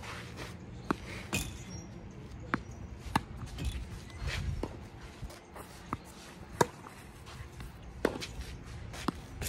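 Tennis rally: a series of sharp knocks as rackets strike the ball and the ball bounces on the court, some close and loud, others distant and fainter, with the loudest about two thirds of the way in.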